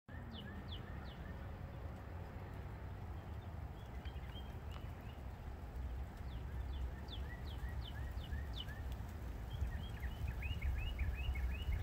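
Small birds singing in series of quick, falling chirps, with a faster run of chirps near the end, over a steady low rumble that grows slightly louder.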